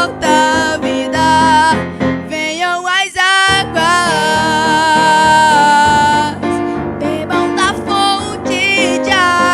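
Worship song: a singer's voice over keyboard and piano accompaniment, holding one long note in the middle before the phrases resume.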